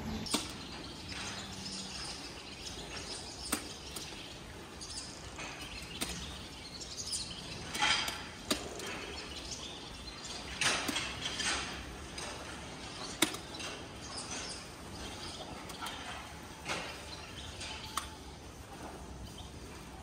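Dairy cowshed background noise: scattered sharp clicks and knocks among cattle, with short rustling noises, the strongest about eight and eleven seconds in.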